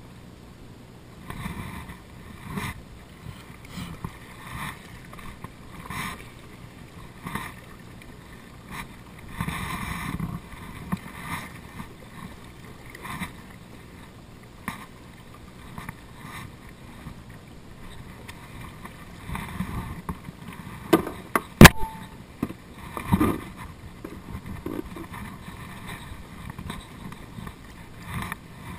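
Water lapping and splashing against a plastic kayak hull in uneven bursts, with a few knocks on the hull and one sharp, loud knock about two-thirds of the way through.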